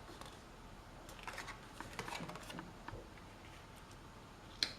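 Faint rustling and soft taps of oracle cards being handled and turned over, with one sharper click near the end.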